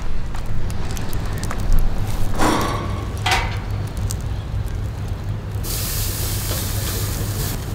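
Charcoal burning with open flames in a stainless steel pan: a steady low rumble with crackles. There are two brief louder sounds about two and a half and three and a half seconds in, and a loud hiss starts suddenly about six seconds in and cuts off just before the end.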